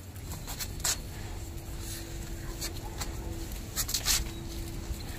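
Soft copper AC tubing scraping and rubbing on a concrete floor as a coil is unrolled and straightened by hand, with a few short scrapes, two of them close together near the end.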